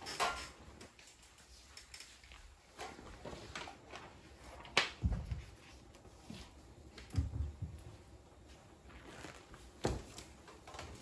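Footsteps on a wooden floor and handling at a microphone lectern: scattered sharp clicks and taps, with a few low thumps.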